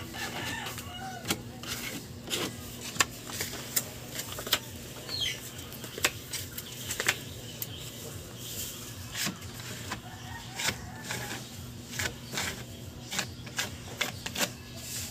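Sandpaper rubbed by hand over white lacquer putty on a table edge in many short, irregular scratchy strokes, smoothing the puttied surface before primer.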